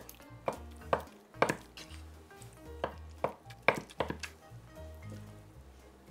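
Kitchen knife chopping on a cutting board: about eight separate strokes with a short pause in the middle, stopping a little after four seconds in.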